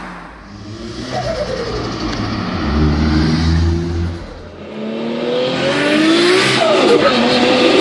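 Turbocharged car engine revving: the pitch drops early on, holds a low note, then climbs again and falls off near the end. Rapid fluttering as the throttle closes, turbo flutter from compressor surge on a car without a blow-off valve.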